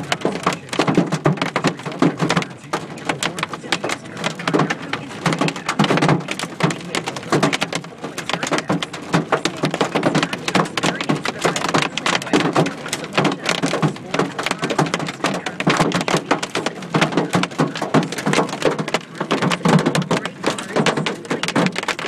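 Hailstones hitting a car's roof and windshield, heard from inside the cabin: a dense, rapid, uneven clatter of hits that sounds like popcorn in a microwave.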